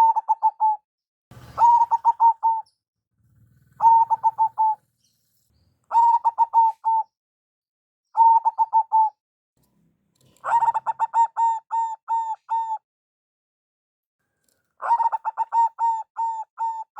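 Zebra dove cooing: about seven phrases of quick, rolling coo notes repeated in a steady rhythm, each phrase lasting one to two seconds, with short silent gaps between them.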